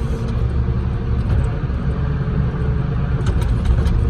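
Heavy machine engine running steadily with a low, even rumble, with a few faint clicks about three seconds in.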